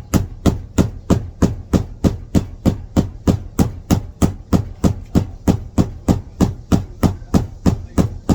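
Hammer tapping on a sandal's sole in steady, even blows, about three a second.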